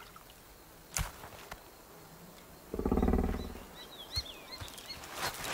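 A large animal's low, rasping grunt, just under a second long, about three seconds in, followed by a few short bird chirps. The rest is quiet outdoor background with a single click about a second in.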